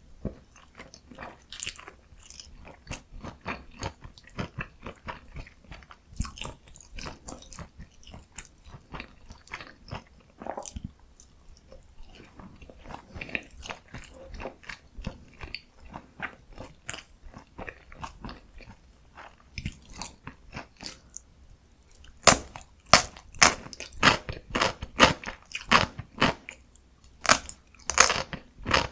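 Close-miked ASMR eating sounds of dumplings (kimchi and meat mandu) being bitten and chewed: soft, moist chewing at first, then about three-quarters of the way in much louder, crisp crunching bites, roughly two a second.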